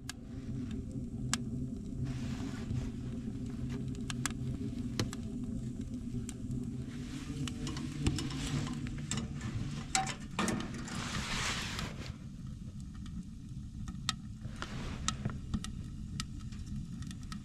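Wood fire crackling inside a small stainless steel tent stove, with many sharp pops over a steady low rumble.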